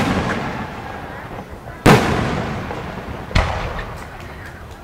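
Aerial firework shells bursting overhead: a boom at the very start, a louder one about two seconds in and a smaller one about three and a half seconds in. Each is followed by a rolling echo that slowly fades.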